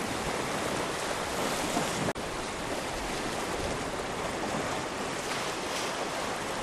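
Sea surf washing steadily against a rocky shore, an even rushing wash of waves.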